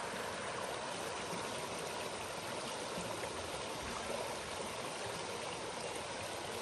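Steady, even rushing of flowing water.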